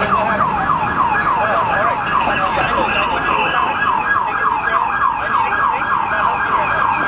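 Emergency-vehicle siren in fast yelp mode, its pitch sweeping up and down about four times a second, cutting off near the end.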